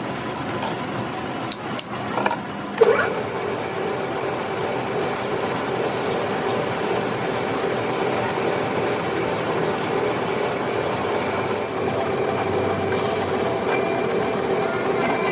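Metal lathe running while cutting a V-belt pulley: a few sharp knocks, then from about three seconds in a steady ringing squeal from the tool on the metal over the machine's running noise.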